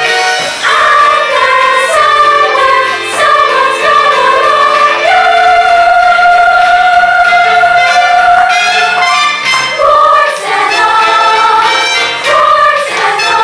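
Middle-school cast singing a stage-musical finale in chorus over accompaniment, holding one long note for about four seconds midway.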